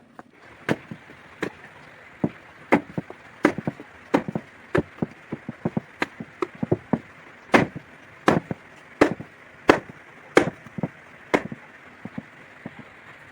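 Knife chopping on a cutting board in a steady rhythm: a firm stroke about every 0.7 s, with lighter taps in between.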